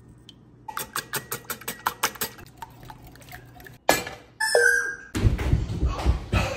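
A utensil beating eggs, milk and cinnamon in a glass bowl, clicking against the bowl several times a second for about three seconds. Then a single sharp knock, a short squeak, and louder low handling noise near the end as bread is pressed into the egg mixture.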